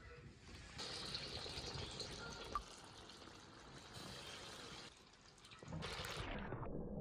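Liquid pouring in a steady stream for about four seconds, then a second, shorter pour near the end.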